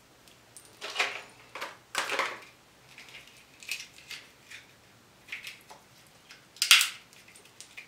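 King crab knuckle shell being cracked and picked apart by hand and teeth: a string of short, sharp crunches and snaps, with the loudest crack near the end.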